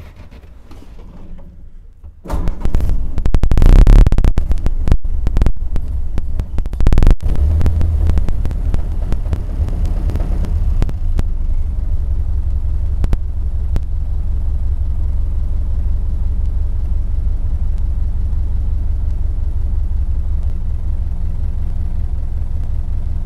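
Model A Ford's four-cylinder flathead engine starting about two seconds in, loud and uneven for the first few seconds, then settling into a steady idle: its first start after a new cylinder head and head gasket. A crackle of static runs over it, ignition interference from sparks jumping the distributor rotor gap, picked up by the microphone cable.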